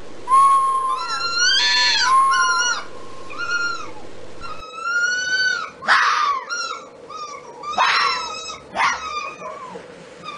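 Fox calling: a run of high, whining calls that rise and fall in pitch, then, about halfway through, three short harsh barks about a second apart, with whines between them.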